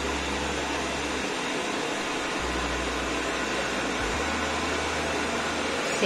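Eufy RoboVac G10 Hybrid robot vacuum running in vacuum-only mode: a steady, even hiss from its suction fan and brushes.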